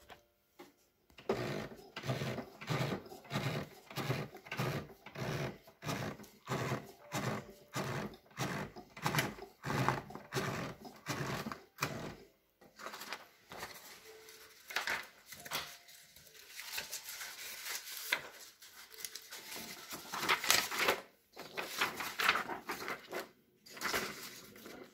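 Epson dot-matrix printer printing a graphic, its print head buzzing across the page in rhythmic passes, about two a second. It goes quieter around the middle, then the passes come louder and denser near the end.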